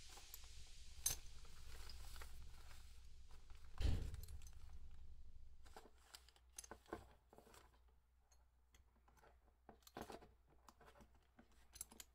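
Faint clicks and light knocks of hard plastic hydraulic rim-brake parts being handled with gloved hands. A steady hiss runs under them for about the first half. One dull thump about four seconds in is the loudest sound.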